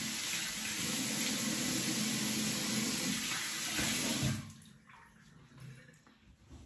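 Bathroom sink tap running steadily into the basin while the face is splashed to rinse off shaving lather between passes; the water cuts off sharply about four seconds in, leaving only faint small sounds.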